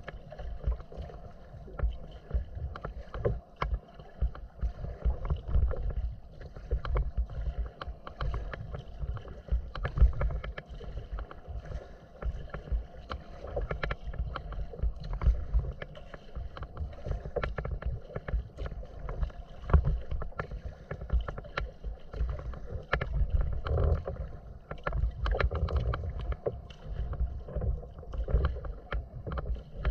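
A kayak being paddled across choppy open water: small waves slap and splash against the hull at irregular intervals over a steady low rumble.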